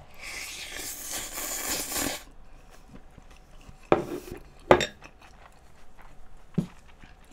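Wet, close-up chewing of a big mouthful of bibimbap for about two seconds, then a dish and utensils clinking as they are set down: two sharp clinks in the middle and a lighter one near the end.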